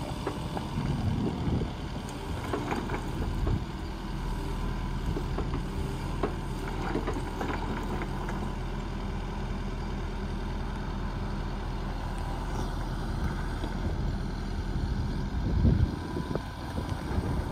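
Mustang 550z 5.5-ton mini excavator running steadily, its engine drone carrying a thin steady whine, as it works its boom and bucket. Scattered knocks and clanks come in the first half, and a brief louder rumble near the end.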